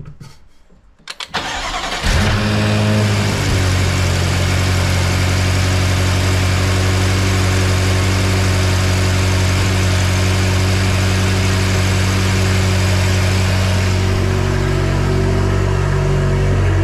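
BMW M5 F10's 4.4-litre twin-turbo V8 cranked by the starter and catching about two seconds in, flaring briefly and then settling into a steady idle, its note shifting slightly near the end. This is the test start after an alternator and belt replacement.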